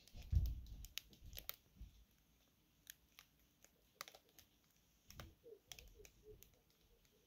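Faint, scattered clicks and knocks, with a low thump about half a second in: a person moving about off-camera and handling things while fetching scissors.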